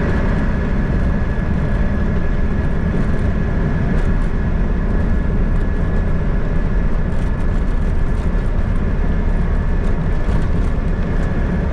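Moving vehicle running steadily, a dense low rumble with a faint constant high whine.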